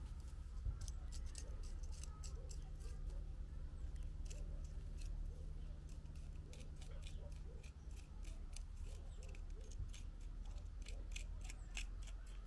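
Faint, irregular crunching and clicking of gritty soil as fingers press and work it around the base of a small pine, over a low steady rumble.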